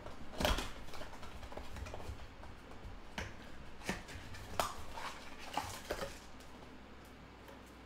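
A cardboard trading-card blaster box being handled and opened, with foil card packs sliding out: a series of sharp cardboard clicks and snaps, about one every half second to second, that die down near the end.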